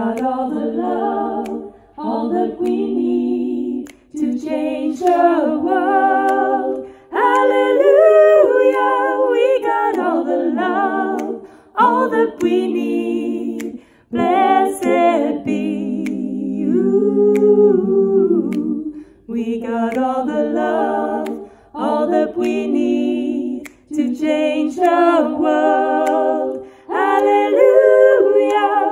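A woman singing a cappella, a wordless harmony part in short phrases of one to three seconds with brief breaks between them.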